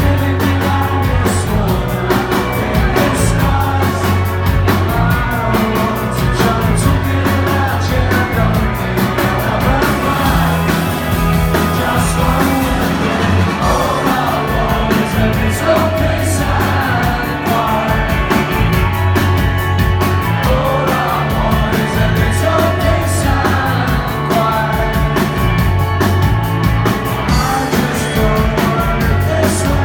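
Rock band playing live and loud, with singing over a steady drum beat.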